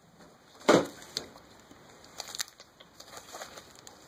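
Foil Pokémon booster packs being handled, with light crinkling and scattered small clicks, and one louder, short handling knock or crinkle just under a second in.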